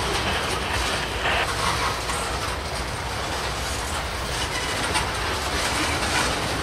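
Freight train of CSX covered hopper cars rolling steadily past: continuous rumble and rattle of steel wheels on the rails.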